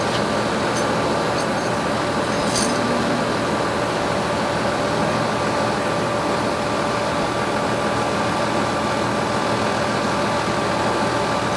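Heavy diesel engine running steadily at a constant speed, with a steady whine over the rumble. A few faint clicks come in the first few seconds.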